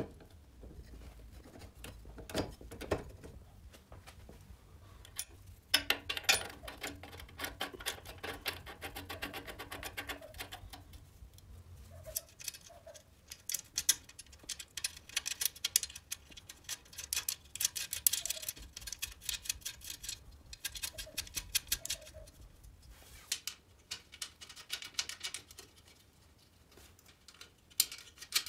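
Small metal clicks, taps and rattles of hand tools and parts as a Riga 12 moped's front fork, handlebars and front mudguard are put together, coming in quick clusters with short pauses.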